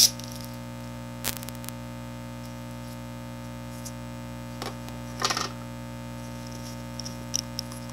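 Steady electrical mains hum with a stack of even overtones, picked up on the recording, with a single click about a second in and a brief rustle of handling around five seconds in.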